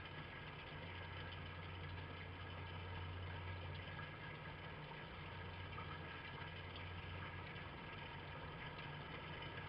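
A steady low hum with a faint hiss behind it, unchanging throughout.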